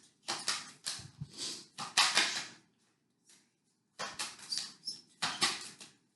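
Tarot cards being shuffled and handled: two runs of quick, dry card rustles and slaps, with a pause of about a second and a half between them.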